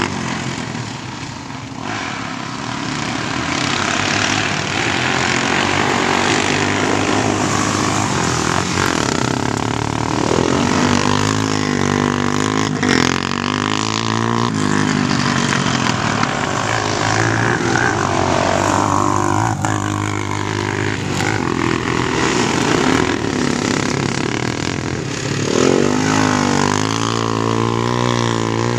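Engines of Honda 400EX and 300EX sport quads, each a single-cylinder four-stroke, revving up and down again and again as they race laps. The pitch climbs with each burst of throttle and drops off between.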